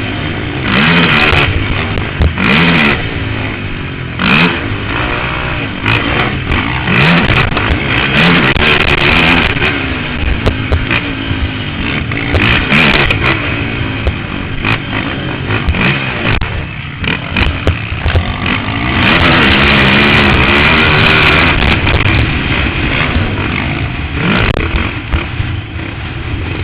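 Can-Am DS 450 quad's single-cylinder four-stroke engine under hard riding, revving up and dropping back again and again, with scattered knocks and clatter. Heard from a helmet-mounted camera.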